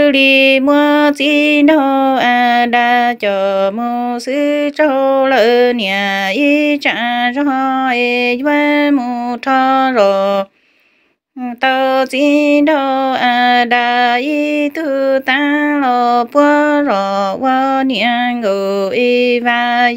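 A woman singing a Hmong kwv txhiaj, a chanted folk song of blessing, alone in long wavering melodic phrases. The voice drops out for about a second near the middle, then goes on.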